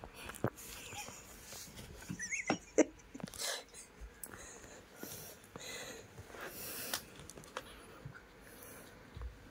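Newborn kittens stirring on a cloth bedspread: soft rustles and breathy sniffing noises, with a brief high kitten squeak about two and a half seconds in.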